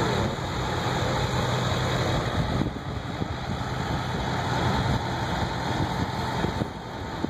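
Fire truck engine running as the truck rolls slowly past at parade pace, a steady low rumble with a hum that eases off a few seconds in.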